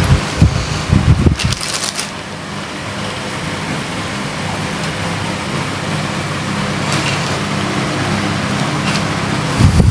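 Steady whir of a small electric fan, with a few low bumps and rustles of handling about a second in and again near the end.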